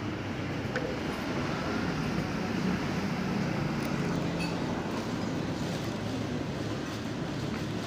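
Steady background rumble and din, like nearby road traffic, with no single event standing out.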